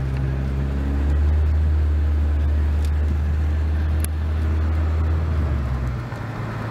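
Car driving, heard from inside the cabin: a steady low engine and road drone that eases off about six seconds in.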